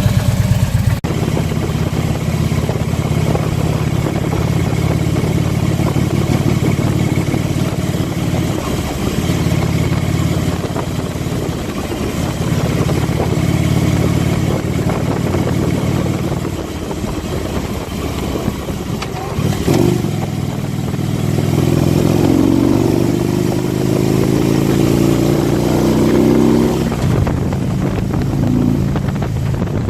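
Harley-Davidson Ultra Limited's 103-cubic-inch V-twin engine running while riding, steady at cruise, then climbing in engine speed from about 20 seconds in. A faint high-pitched tone over the engine is the chirp the owner is trying to trace; he hears it loudest when cruising or under light acceleration at 1800–2500 rpm.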